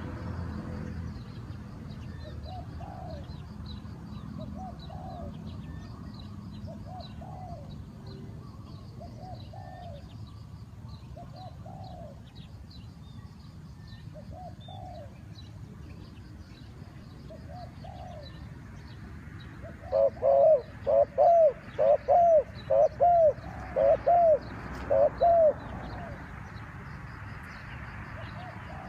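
Spotted doves cooing: short coos repeat softly every second or two, then a much louder run of about seven quick coos comes about two-thirds of the way in. Faint high chirps of small birds run throughout.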